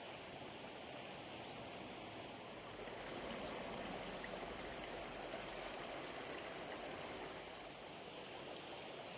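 Faint, steady rush of running water, a little louder from about three seconds in until past the middle.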